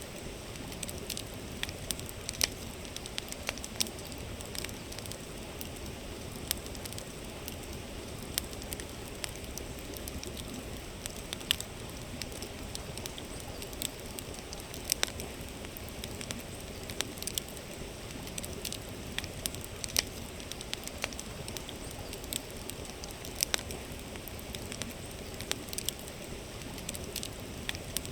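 Campfire crackling with sharp irregular pops, over the steady rush of a flowing river.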